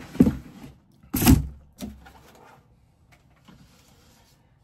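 Cardboard boxes and packaging handled inside a large shipping carton as parts are lifted out: two loud scraping rustles, the second with a dull thump, in the first second and a half, then a shorter one and faint rustling.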